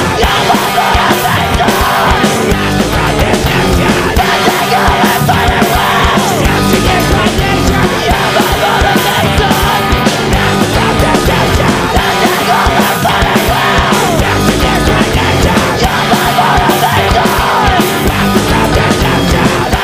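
Loud screamo/hardcore punk recording: a full band with distorted guitars and pounding drums, with screamed vocals.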